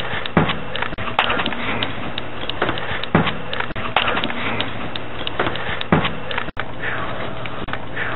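Loud hiss and crackle of a voice recorder's amplified playback, with many scattered sharp pops and a faint low hum. The noise is presented as holding a ghost voice, an EVP captioned '13 Days'.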